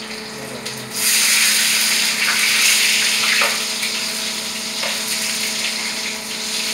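Food frying in hot oil in a pan on a gas stove: a loud sizzle starts suddenly about a second in, as the food goes into the oil, and carries on steadily, with a few light knocks of the utensil against the pan.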